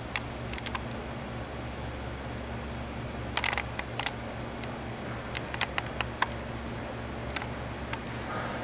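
Scattered sharp clicks, some in quick runs of three or four, over a steady low hum.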